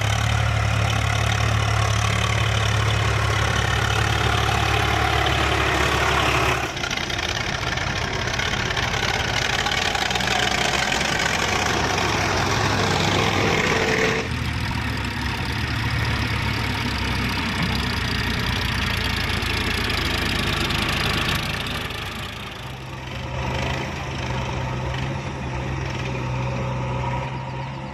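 Heavy diesel engine running steadily, typical of a backhoe loader or farm tractor at work. The sound changes abruptly about seven and fourteen seconds in, and becomes quieter and lower about twenty-two seconds in.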